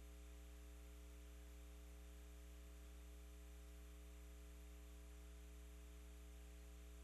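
Near silence: a steady low electrical hum with faint hiss on the broadcast audio feed.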